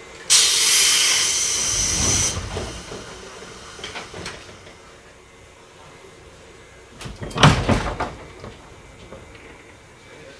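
211 series electric train at a station platform: a loud blast of compressed-air hiss from its pneumatic system starts suddenly and cuts off after about two seconds. About seven seconds in comes a short cluster of metallic clunks and thuds as the train starts to pull away.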